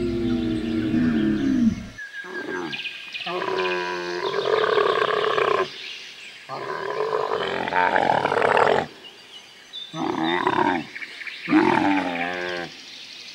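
Camels bellowing: a run of drawn-out, rough roaring calls, each one to a few seconds long, with short pauses between them.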